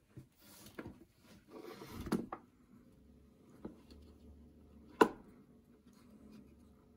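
Light handling noises as fingers move cloth-covered wires around the pots on a Stratocaster pickguard. A soft rustle fills the first couple of seconds, and a single sharp click comes about five seconds in.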